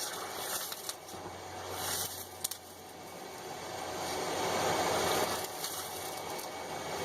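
Hot forged steel tongs quenched in oil, sizzling and crackling with a hiss that swells about four to five seconds in.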